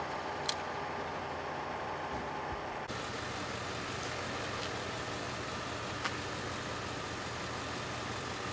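Vehicle engine idling with a steady low hum, with a short sharp click about half a second in and another about six seconds in.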